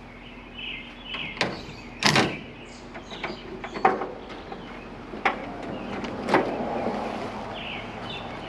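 Metal tools knocking and clicking on a truck battery terminal as the negative cable is taken off: about half a dozen separate sharp knocks, the loudest about two seconds in, with birds chirping in the background.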